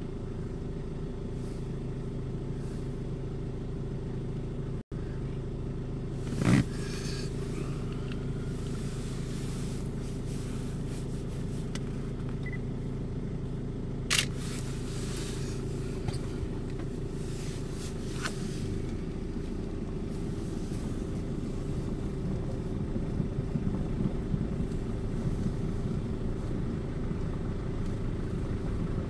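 Vehicle engine idling steadily, heard from inside the cabin, with two brief knocks about six and a half and fourteen seconds in.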